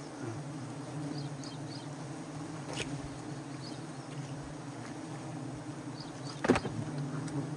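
A swarm of wild honey bees buzzing around exposed combs, a steady hum, with a sharp knock about six and a half seconds in and faint bird chirps.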